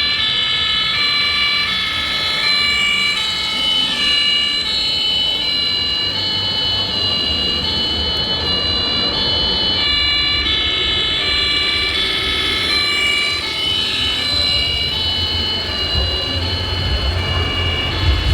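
Electronic siren-like tones stepping between several fixed pitches, each held for about half a second to a second. A low rumble builds underneath from about six seconds in and grows stronger near the end.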